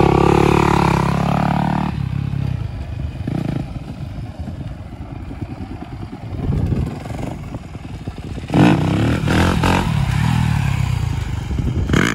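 Four-stroke Yamaha YZ250F dirt bike engine revving hard and pulling away, its pitch rising and falling, then dropping to a fainter drone. About eight and a half seconds in it is suddenly loud again, revving up and down.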